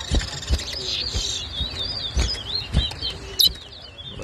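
Towa-towa seed finch singing a fast run of high, warbling whistled notes, over scattered low thumps.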